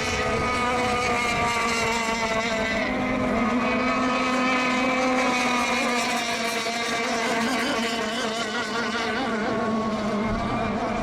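Several radio-controlled racing boats running flat out around the course, their small engines making an overlapping steady high-pitched whine with slight shifts in pitch.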